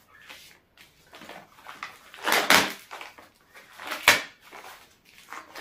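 Fabric pieces being handled and turned out by hand, giving a few brief rustles, with one short sharp tap about four seconds in.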